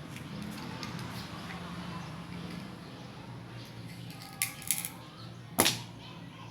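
Shell of a cooked shellfish being pried open by hand: two quick sharp clicks about four and a half seconds in, then a louder crack about a second later.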